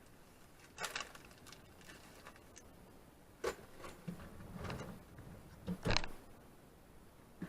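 Scattered clicks and knocks, the loudest a pair about two-thirds of the way through, as screws are taken out and an electric coffee pot mounted in a cabinet is worked loose.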